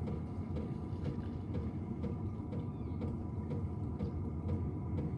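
Steady low machine hum and rumble with a faint, regular ticking about twice a second.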